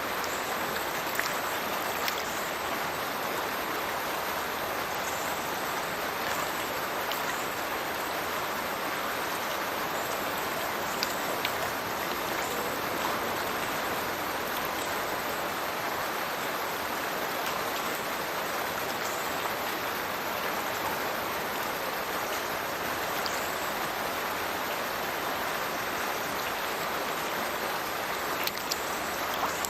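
Steady rush of water from a burn pouring out of a culvert and splashing down into a river, with the occasional sharper splash.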